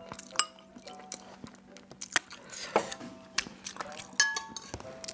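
A series of sharp clicks and light clinks from small hard objects, such as a cup, bottle or utensils, being handled and set down.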